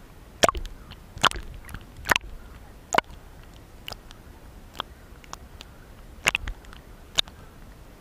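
Small lake waves slapping against a camera held at the water surface: sharp, irregular splashes roughly once a second over a low steady wash of water.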